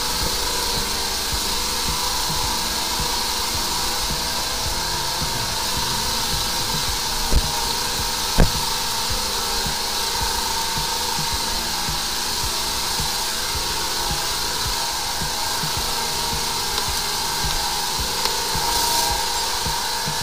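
High-pressure drain jetter running steadily, water hissing through the hose jetting out a blocked drain line. Two short knocks about a second apart near the middle.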